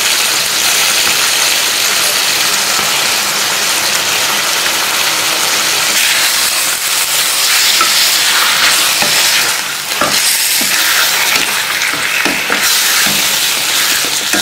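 Raw chicken pieces sizzling in a stainless steel pan, with a wooden spatula scraping and turning them from about six seconds in.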